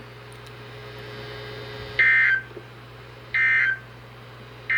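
Three short bursts of Emergency Alert System end-of-message data tones (the "NNNN" signal) from a NOAA Weather Radio broadcast, marking the close of the weekly test. The bursts are about 1.4 s apart and begin about two seconds in, over a steady low hum.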